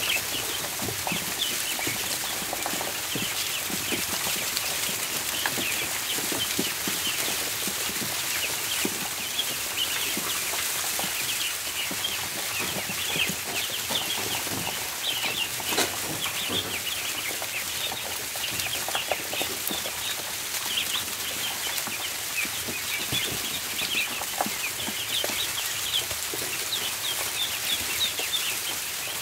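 A flock of ducklings peeping nonstop, many short high chirps overlapping, with scattered soft taps beneath.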